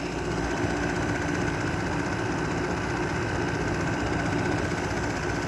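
Window air conditioner running, heard close up at the back: compressor and condenser fan giving a steady hum and rush of air with a constant high whine.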